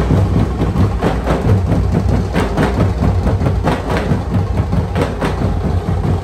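Band of drummers beating large bass drums and smaller drums with sticks in a loud, fast, dense rhythm.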